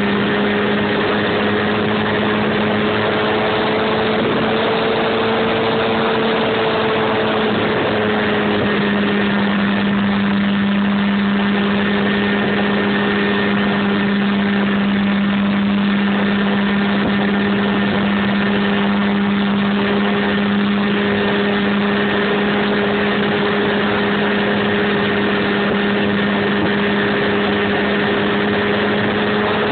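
RC airplane's motor and propeller running steadily in flight, heard close up through the plane's onboard camera, with a drone of two steady tones. The pitch rises slightly a few seconds in, then settles back.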